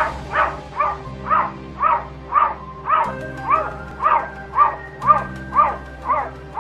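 Black cat at a window giving a fast run of short, bark-like calls, about two a second, each rising and falling in pitch.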